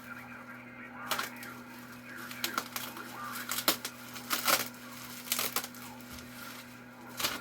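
Bubble wrap being handled and pulled away, giving irregular sharp crinkles and crackles, over a steady low electrical hum.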